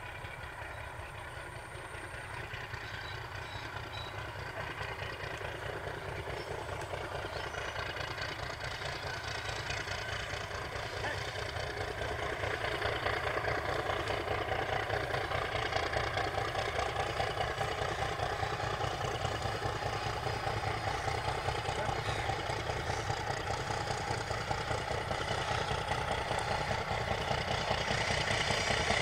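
MLW DL535A meter-gauge diesel locomotive, an ALCO design, running under power as it approaches, its engine growing steadily louder.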